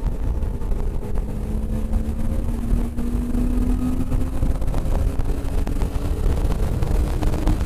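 Car engine running hard under load at speed, its note climbing steadily over the first few seconds as the car accelerates, then holding. A heavy low rumble of wind and road noise runs underneath.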